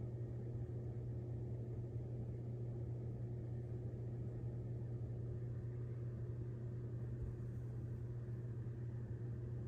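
Steady low electrical hum from aquarium equipment running on a small shrimp tank, unchanging, with no breaks.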